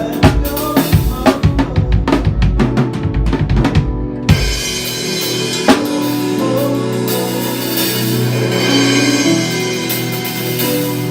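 Drum kit played in a fast run of bass drum and snare hits. About four seconds in, the hits stop and give way to held notes under a ringing cymbal wash, with one more hit shortly after.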